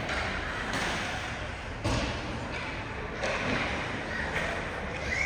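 Hockey arena ambience: a steady hubbub of crowd and rink noise, with one sharp thump about two seconds in.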